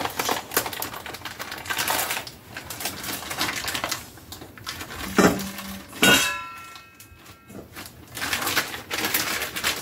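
Kitchen handling noise as chicken legs are portioned out for freezer meals: scattered clicks, rustling and light clatter, with a knock about five seconds in and a sharp clink just after that rings briefly.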